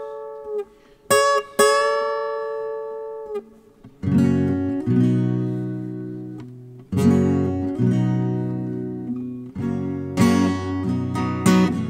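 Acoustic guitar playing an instrumental intro: single strummed chords struck and left to ring out for a few seconds each, moving to quicker strumming near the end.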